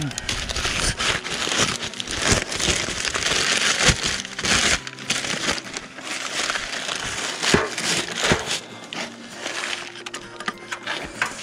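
Hands and pliers working at a tight fitting on a Kubota RX303S mini excavator's return filter: a crinkling, scraping noise with scattered knocks.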